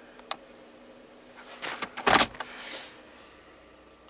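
A click, then rustling and knocks with one heavy thud about two seconds in: a car door being opened and shut.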